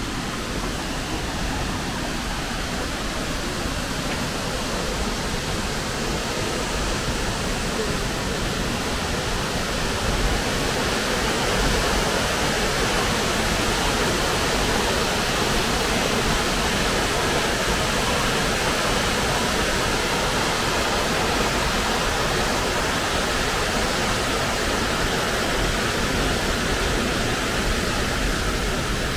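Bash Bish Falls rushing: a steady wash of falling water that grows louder about ten seconds in.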